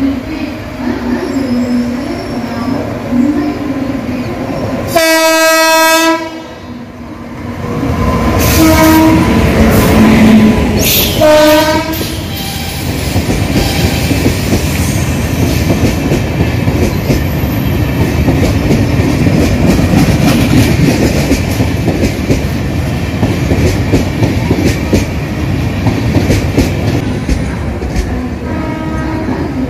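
Express passenger train hauled by a WAP-7 electric locomotive, sounding its air horn: a long blast about five seconds in and a shorter one about six seconds later. The coaches then run past at speed with a steady rumble, the wheels clattering over the rail joints.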